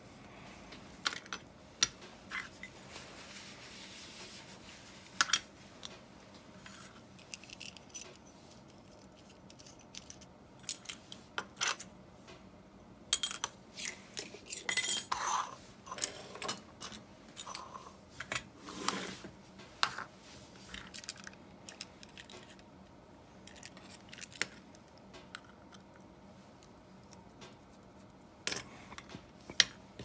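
Metal parts of a disassembled Abu Garcia Ambassadeur 1500C baitcasting reel clinking and tapping as they are handled and set down on a wooden table. Scattered clicks, with a busy run of clinks about halfway through.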